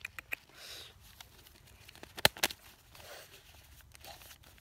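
Paper banknotes being handled and fanned out by hand: crisp rustles and scattered paper clicks, with two sharper snaps a little past two seconds in.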